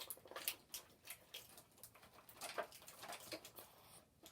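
Faint, irregular rustling and clicking of plastic packaging and small plastic parts being handled, as an action figure is worked out of its box.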